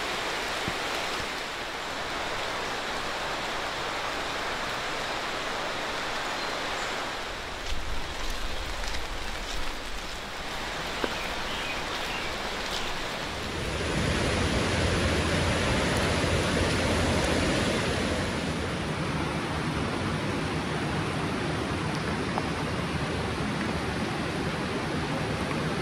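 Steady rushing of the Snoqualmie River running over a rocky bed in the rain, with a few soft irregular thumps about a third of the way in. About halfway through, the sound becomes a fuller, louder rush of rain falling on the river's surface.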